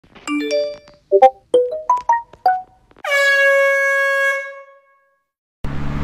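A quick run of short electronic notes, the first three stepping up in pitch, then one long held tone that fades out over about a second and a half. Near the end a car-driving sound effect begins: a steady engine hum under road noise.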